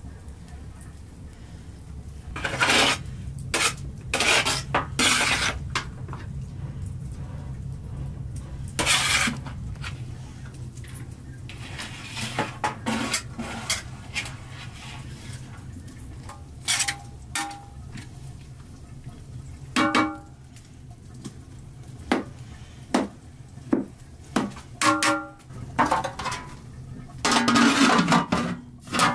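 Metal pots, pans and utensils knocking and clinking in irregular strokes, some ringing briefly, over a low steady hum.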